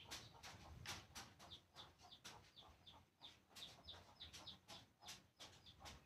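Faint bird calls: a run of short, repeated chirps with a few clucks.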